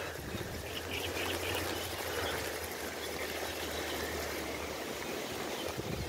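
Strong wind rushing on the microphone, a steady noisy buffeting with a low rumble that eases off about five seconds in.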